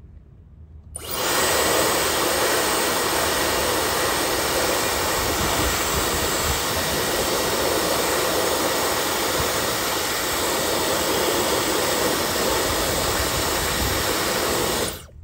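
Dyson hair dryer blowing, a steady loud rush of air that starts about a second in and stops just before the end.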